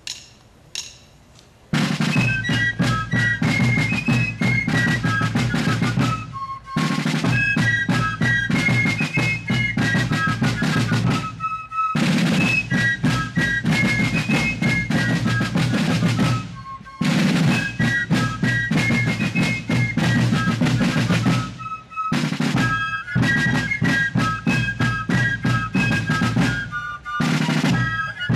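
Fife and drum corps playing a tune: several wooden fifes carrying a shrill melody over rattling snare drums. The music starts about two seconds in after a couple of sharp clicks, and drops out briefly between phrases about every five seconds.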